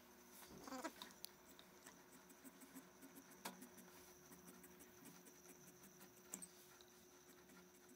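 Faint snipping and clicking of large tailor's shears cutting through coat fabric on a cutting table. There is a short rising squeak about half a second in and a few sharper clicks later.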